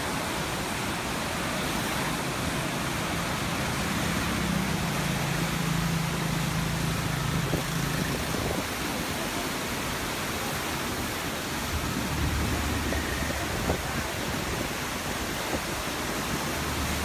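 Fast-flowing floodwater rushing and churning in rapids, a steady noise of water. A low hum comes in under it for a few seconds, twice.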